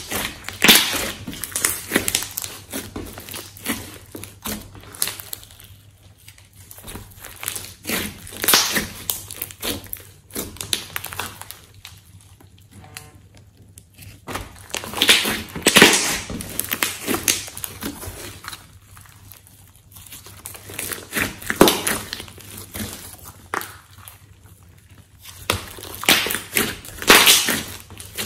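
Thick glossy slime mixed with clay, kneaded, squeezed and stretched by hand, giving sticky crackling and popping in bursts every few seconds with quieter stretches between.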